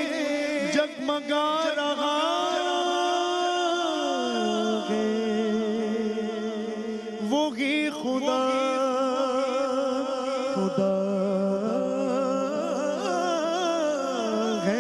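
A man singing a naat in long, held notes with fast wavering ornaments.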